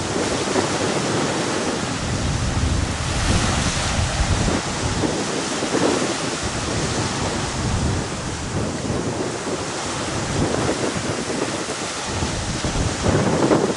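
Strong wind buffeting the microphone in uneven low rumbles, over the rushing hiss of choppy, wind-whipped sea.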